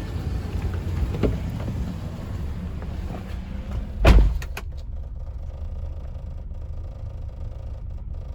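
A 1999 Lexus RX 300's 3.0-litre V6 idling with a low, uneven rumble, struggling from a cylinder 6 misfire that the owner puts down to a failed ignition coil. A car door shuts with a thump about four seconds in, and after it the sound is muffled as if heard from inside the cabin.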